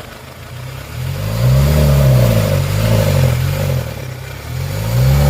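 Kia Sorento's D4CB 2.5-litre four-cylinder diesel engine running and being revved, its pitch rising and falling over and over; it eases off near four seconds and picks up again. The engine runs again now that its no-start fault, a lost-contact ground wire, has been fixed.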